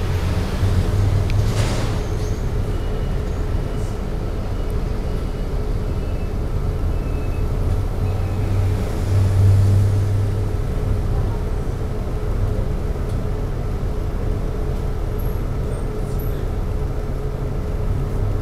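City bus engine running at low speed in slow traffic, heard from inside the cabin as a steady low hum that swells briefly about halfway through. A short hiss of air comes about a second and a half in.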